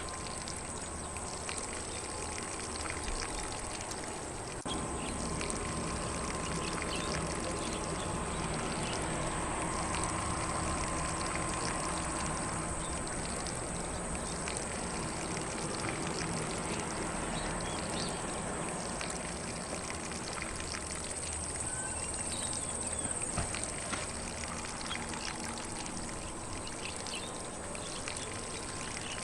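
Lawn sprinkler spraying water across grass: a steady hiss and patter of falling water, a little louder from about five seconds in.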